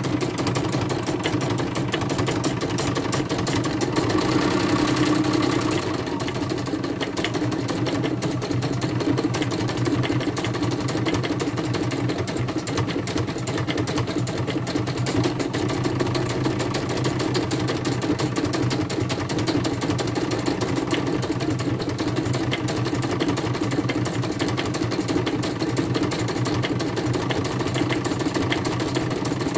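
CNY portable computerised embroidery machine stitching a design, its needle bar running at a fast, even rate as the hoop carriage moves, a little louder about four seconds in.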